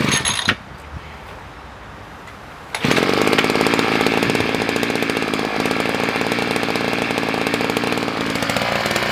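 Gas-powered 52cc two-stroke pile driver engine running steadily with a fast, even pulse, starting up loud about three seconds in; a brief loud burst comes at the very start.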